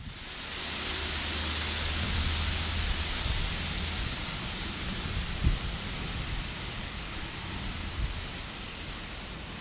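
Steady outdoor hiss with a low rumble during the first few seconds, and a short knock about five and a half seconds in, with a fainter one near the end.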